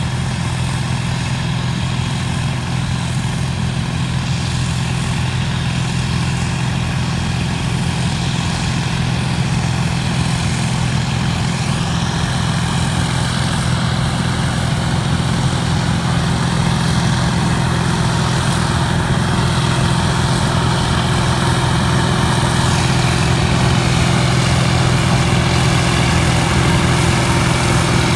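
John Deere 9700 combine running steadily while harvesting wheat, a deep constant engine hum. A faint wavering whine sits on top for a stretch in the middle.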